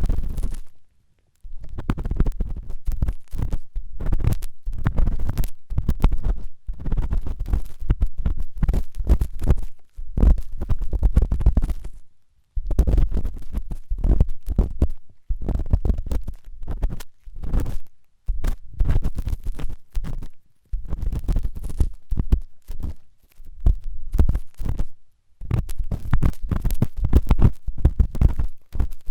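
Ear-cleaning tool scraping and rubbing hard against an ear microphone, in runs of quick strokes with a heavy low rumble, broken by several short pauses.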